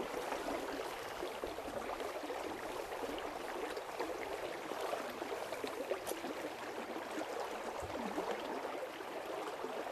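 Shallow river water running and splashing as people wade through it hauling a seine net, a steady rushing sound with no clear single events.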